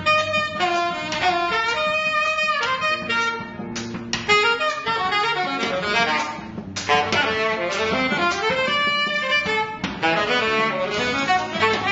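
Live jazz: a saxophone playing quick melodic runs over an electric bass and band backing.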